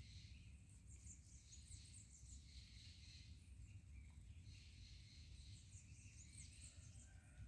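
Faint, high chirping bird calls in two clusters, one about a second in and one near the end, over a low steady background rumble.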